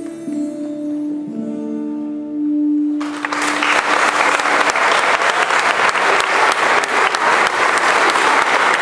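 A children's choir ends a song on a long held note; about three seconds in, audience applause breaks out and continues steadily.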